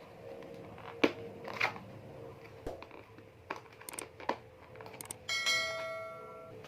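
Cardboard packaging being opened and handled, with scattered clicks and brief rustles. About five seconds in, a bell-like ringing tone sounds once and fades over about a second and a half.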